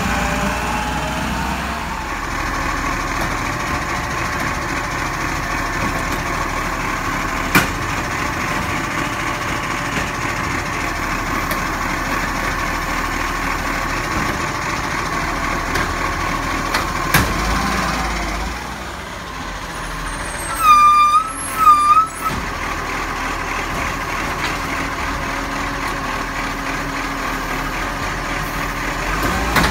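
Side-loading garbage truck running, its engine and hydraulics whining steadily as the automated arm lifts and tips wheelie bins, with two sharp knocks along the way. About two-thirds of the way through come two loud short beeps about a second apart.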